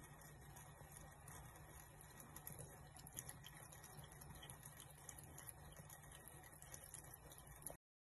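Near silence: a thin stream from a kitchen tap trickling faintly, with small scattered wet ticks as a cat laps at it.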